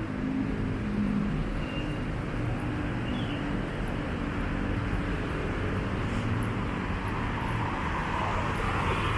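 Steady city street ambience: a low hum of road traffic, with a car passing and its tyre noise growing louder near the end.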